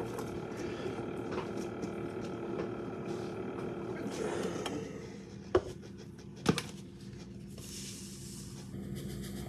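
Faint room hum with some low, indistinct voice, and two sharp clicks about halfway through. The clicks are handling knocks from a cup and packets as coffee is made.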